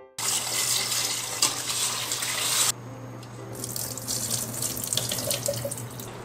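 Kitchen tap running into a stainless steel pot of glutinous rice being rinsed; the flow cuts off suddenly about two and a half seconds in. Then the cloudy rinse water is poured off the rice through a strainer lid and splashes into the sink, over a steady low hum.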